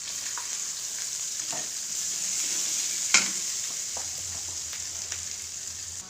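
Sliced shallots and ground spice paste sizzling in hot oil as they are stirred in the pan, with a steady hiss and scattered clicks from the utensil. One sharp clink comes about three seconds in.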